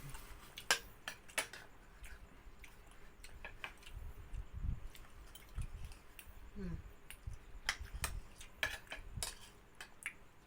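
Spoons and forks clinking and scraping against plates and bowls during a meal, in scattered irregular clicks with a few soft low knocks.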